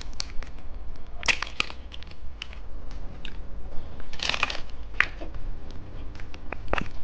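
Plastic snack wrapper crinkling and tearing open, with scattered sharp clicks and rustles and two louder bursts of crackling, one about a second in and one about four seconds in.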